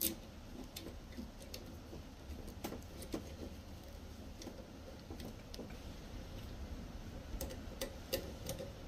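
Irregular small clicks and taps as wire ends are handled and worked into the terminals of a well-pump pressure switch, over a faint low hum.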